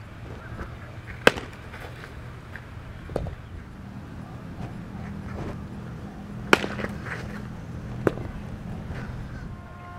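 Softball smacking into leather fielding gloves and a catcher's mitt during a game of catch: four sharp pops, the loudest about a second in and again past six seconds, over a steady low hum.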